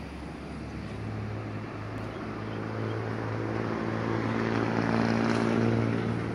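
A passing engine: a steady low hum that grows louder over several seconds, peaks about five seconds in, then starts to fade near the end.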